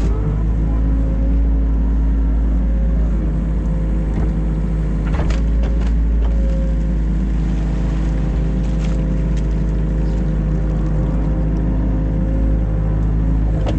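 Diesel engine of a New Holland Kobelco E50.2 mini excavator running steadily under work, with a few short knocks about five seconds in and again near nine seconds.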